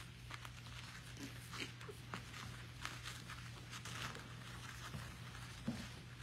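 Young puppies shifting about on their bedding: scattered soft rustles and small clicks over a steady low hum.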